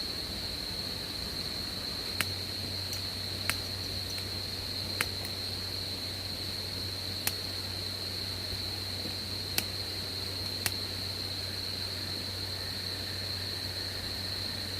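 Insects chirring: a steady, unbroken high-pitched trill held at one pitch, typical of crickets at night. A handful of sharp, irregular clicks stands out over it.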